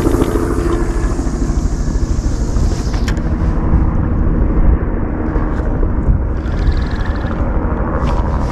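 Wind buffeting the microphone, a loud, uneven low rumble, with a brief high hiss over the first few seconds.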